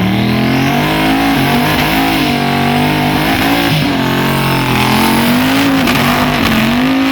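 Drag-racing street car engine running at full throttle down the track, loud, its pitch swinging up and down several times.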